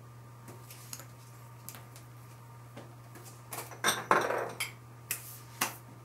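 Small plastic and glass makeup containers and tools clicking and clattering as they are picked up and set down, a few light taps at first, then a louder burst of clatter about four seconds in and two more knocks near the end.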